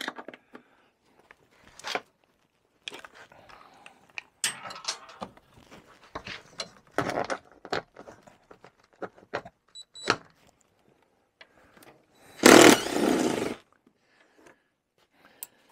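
Scattered metallic clicks, rattles and scrapes of hand work on snowmobile seat hardware. About three-quarters of the way in, a cordless power tool runs loudly for about a second, backing off a nut.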